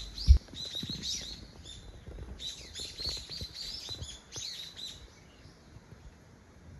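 Small birds chirping in quick, repeated high calls, thinning out after about five seconds. A brief low thump sounds just after the start.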